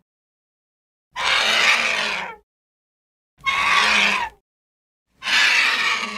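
Pterodactyl screech sound effect: three harsh, wavering screeching calls, each about a second long, with silence between them; the third is still fading at the end.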